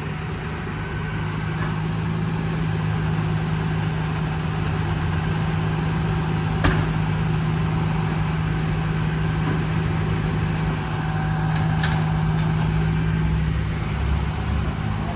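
High-rail truck's engine idling steadily, with two sharp clicks, about seven and twelve seconds in.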